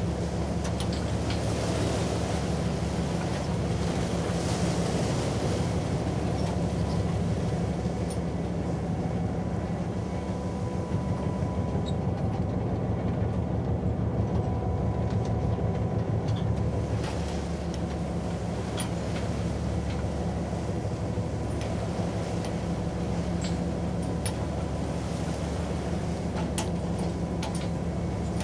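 Steady low rumble of the icebreaker CCGS Edward Cornwallis working its way through sea ice, with scattered faint clicks.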